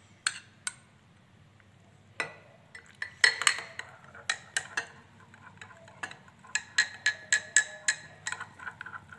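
Metal spoon stirring coffee into milk in a glass mug, clinking against the glass. A couple of taps come near the start, then a pause. From about three seconds in the clinks repeat rapidly, settling into a steady rhythm of about three to four ringing strikes a second.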